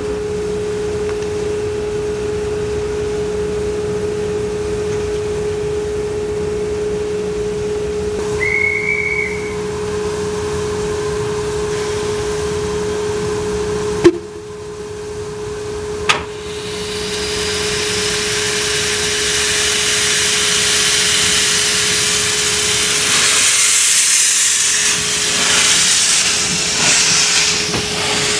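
Narrow-gauge steam locomotive hissing steam, with a steady whine underneath and a brief high whistle-like tone about nine seconds in. Two sharp knocks come about halfway through. Then the steam hiss grows loud and stays loud as the locomotive moves off with steam blowing round its cylinders and wheels.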